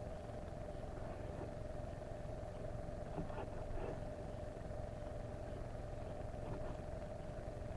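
Portable butane camp stove burner running on full: a steady low rumble with a constant mid-pitched hum, and a few faint light knocks.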